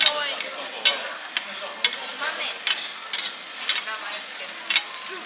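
Okonomiyaki or monjayaki batter sizzling on a hot iron teppan griddle. Metal spatulas clack and scrape against the plate in sharp, uneven strikes, roughly two a second.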